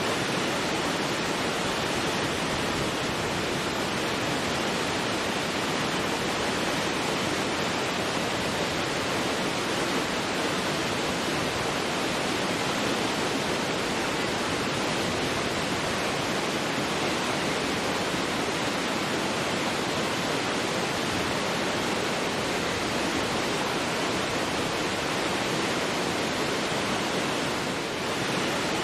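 Large waterfall in heavy flow, a steady, loud rush of falling water.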